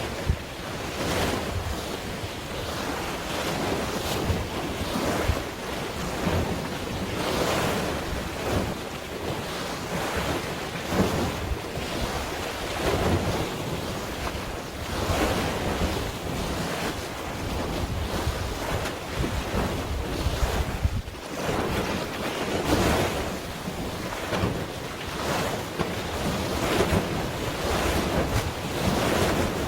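Waves washing in, surging every couple of seconds, with wind noise on the microphone.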